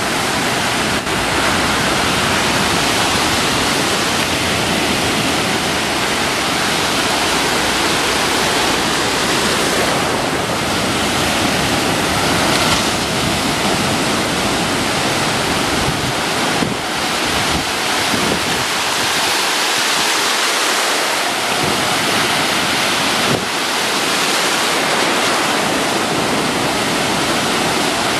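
Ocean surf breaking and washing through the shallows: a steady, dense rush of foaming water.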